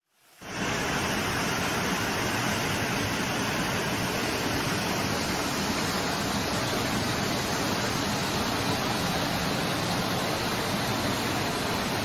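Steady rushing of a muddy flash-flood torrent pouring down a street, starting about half a second in after a brief gap.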